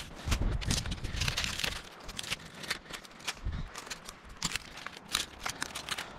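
Dry twigs and brittle dead branches crackling and snapping as they are gathered and handled by hand, in a quick irregular run of sharp clicks, with a few dull thumps in the first second and a half.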